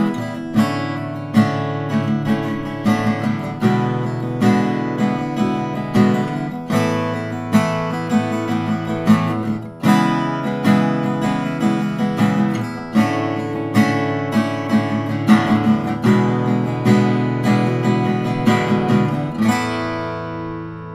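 Mayson Alpha 2 parlor acoustic guitar, with a solid mahogany top and mahogany back and sides, played with strummed and picked chords in a steady rhythm, with a very deep tone. The last chord is left to ring out and fade near the end.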